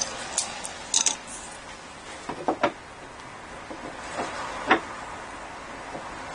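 A few sharp clicks and light knocks from an outside tap and its threaded fitting being handled and worked by hand. The loudest knock comes a little under five seconds in.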